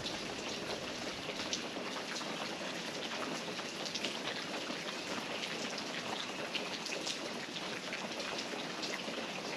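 Rain falling on a patio roof insulated underneath with open-cell spray foam: a steady, damped patter instead of a roar, with scattered drips from the gutterless roof edge.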